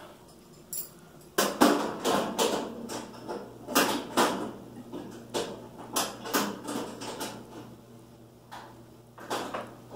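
A dozen or so irregular metal clinks and clanks with short ringing: a wrench, nut and bolt knocking against a sheet-steel feeder body as hardware is fitted and tightened.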